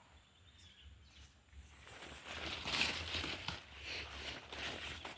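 Footsteps and rustling through pumpkin vines and leaves, irregular and starting about two seconds in after a quiet start.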